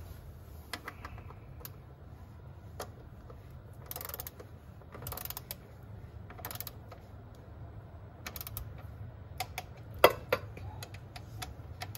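Ratchet wrench clicking in short runs, with scattered metal clicks, as the Mercedes 722.9 transmission pan bolts are tightened to 4 newton metres; the loudest click comes about ten seconds in.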